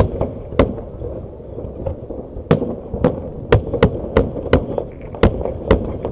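Aerial fireworks shells bursting in a salute: about ten sharp bangs at irregular intervals, with a quick run of them bunched together in the middle.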